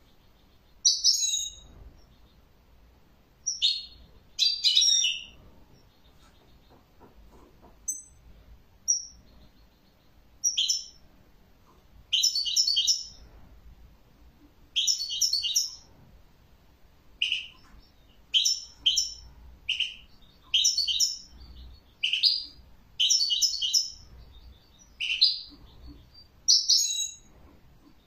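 European goldfinch singing: short bursts of rapid, high twittering notes with brief pauses between them, the bursts coming more often in the second half.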